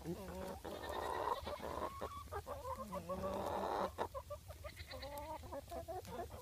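Nigerian dwarf goats and a hen calling softly, several short wavering calls, over a rustling noise during the first few seconds.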